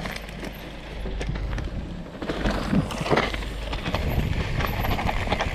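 Mountain bike rolling down a rough dirt-and-rock trail: knobby tyres crunching, the chain and frame rattling with many small knocks, and wind buffeting the helmet camera's microphone. It grows louder about two seconds in, with the hardest jolts around three seconds.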